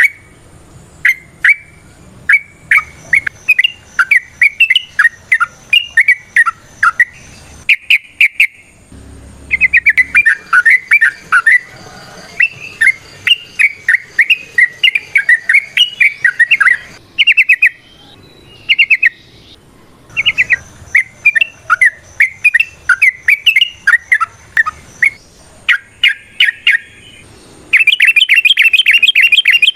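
Yellow-vented bulbul (trucukan) singing loud, rapid chattering phrases of short up-and-down notes, broken by short pauses. Near the end it goes into a fast unbroken rattle of notes.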